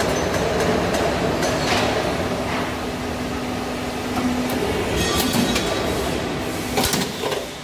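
Square downpipe roll forming machine running, the formed sheet-metal pipe feeding out through its rollers: a steady mechanical running noise with a low hum and a few sharp clicks.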